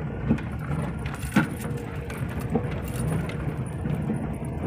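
Cabin sound of a Maruti Suzuki Eeco van driving slowly over a rough, stony dirt track. A steady low rumble of engine and tyres runs under light rattling and a few sharp knocks as the body jolts, the loudest about a second and a half in.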